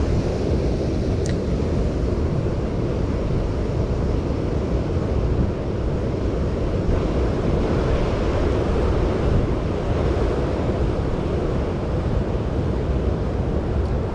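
Steady rush of water from a dam spillway, with wind buffeting the microphone.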